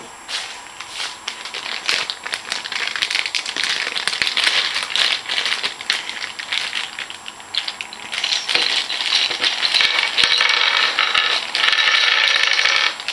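Loose plastic pieces of a DIY Rubik's cube kit rattling and clicking against each other as they are taken out of their packaging, a dense clatter that thickens near the end.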